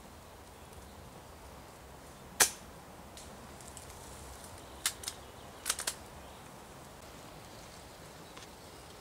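Airsoft guns firing: one sharp snap, then five quicker, fainter shots in two short clusters a few seconds later.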